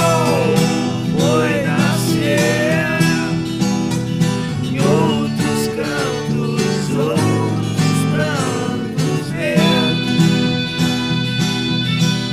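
Instrumental break of an acoustic Brazilian folk song: viola caipira and acoustic guitar playing chords, with a gliding melody line on top.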